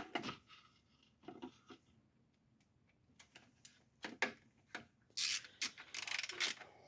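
Ratchet and socket clicking in short runs as intake manifold bolts are run down snug, with scattered light taps of tools on metal. The densest run of ratcheting comes about five seconds in.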